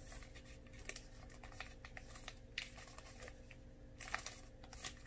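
Faint, scattered crinkling of foil Pokémon booster pack wrappers being handled and shuffled in the hands.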